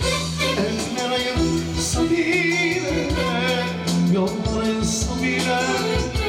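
Live band music: a singer's voice over keyboard and bass, with held notes wavering in vibrato about two to three seconds in.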